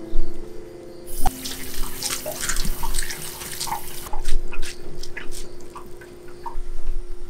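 Tap water running onto hijiki seaweed in a plastic colander in a stainless steel sink, starting about a second in and stopping about three seconds later. Then scattered drips and splashes as the colander is shaken to drain.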